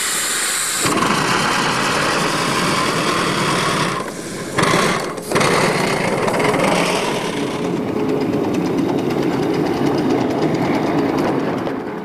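Miniature live-steam model of a DSB class F tank locomotive under way: exhaust chuffing over a hiss of steam, with the sound dipping briefly twice around four and five seconds in.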